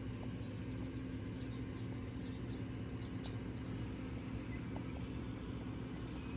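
A steady low mechanical hum, like a motor or engine running, with a constant tone and faint high chirping over it.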